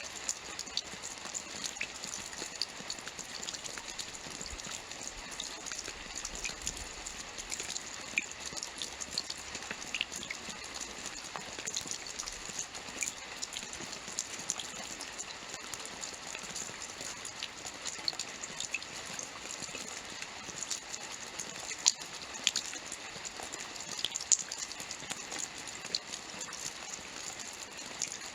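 Steady rainfall: a continuous hiss of rain with many individual drops ticking sharply on a hard surface, a few louder near the end.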